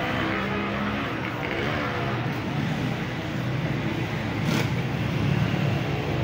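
Busy street noise with a motor vehicle's engine running close by. A short click or knock comes about four and a half seconds in.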